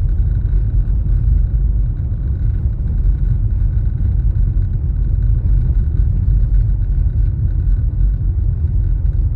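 Car driving along at a steady pace: a continuous low rumble of engine and road noise.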